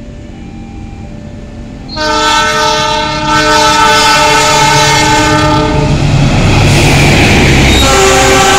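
A CC206 diesel-electric locomotive's horn sounds a long blast about two seconds in as it approaches, followed by the loud rush of the passenger train's wheels and carriages passing at speed. Near the end the horn sounds again, lower in pitch.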